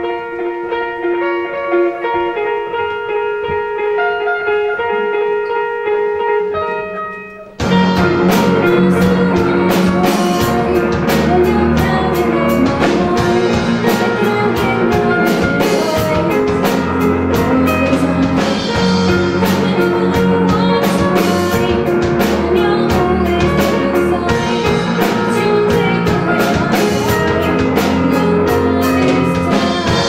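A small rock band playing live: a quiet intro of sustained held notes, then about seven and a half seconds in the full band comes in together, with drum kit, guitars and a singer.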